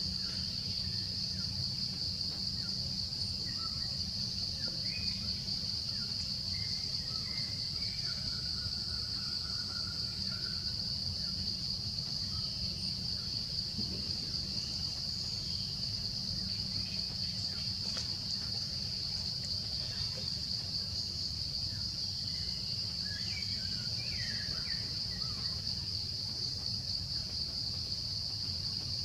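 Insects droning steadily at one unbroken high pitch, with faint short chirps scattered over it and a low steady rumble beneath.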